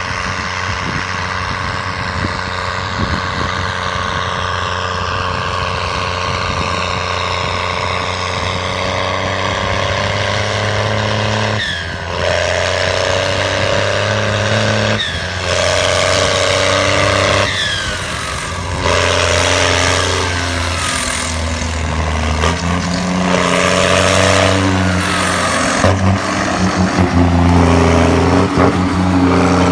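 New Holland T7 tractor's diesel engine running, with a high whine that falls in pitch over the first several seconds. From about 12 seconds in, the engine note drops briefly and jumps to a new pitch several times, changing engine speed in steps.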